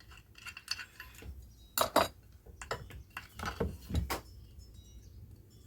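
Metal hand tools and small engine parts clinking and knocking together as a tool is backed off the Tecumseh engine's governor shaft: a scatter of sharp clinks, the loudest knocks about two seconds and four seconds in.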